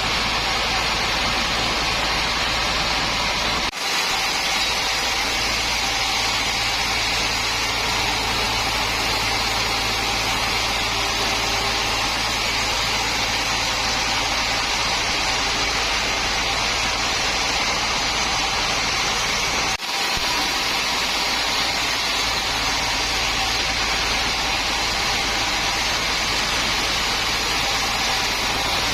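Sawmill machinery running steadily: a continuous mechanical noise over a constant low hum, broken only by two very brief drop-outs about 4 and 20 seconds in.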